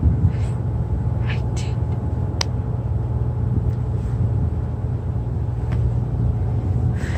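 Steady low mechanical rumble with a hum, with a few faint short rustles and one sharp click about two and a half seconds in.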